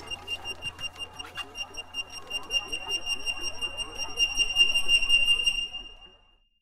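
Rapid electronic beeping, several beeps a second on one high pitch, from a cartoon spy transmitter hidden under a cabinet and still active. It swells louder, then fades out about six seconds in.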